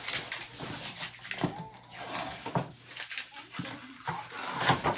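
Workshop handling noises: scattered light knocks, clicks and rustling.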